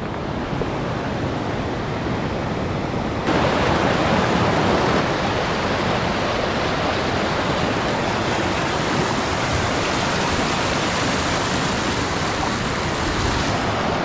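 Mountain river rushing over boulders and through rapids, a steady hiss of water that gets louder about three seconds in.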